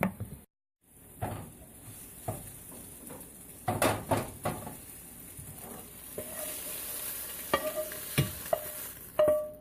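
Egg whites sizzling in a frying pan while a utensil stirs and knocks against the pan. The sizzle grows louder in the second half, and a few knocks near the end leave short metallic rings.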